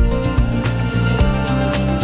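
Instrumental background music with a steady beat and plucked guitar.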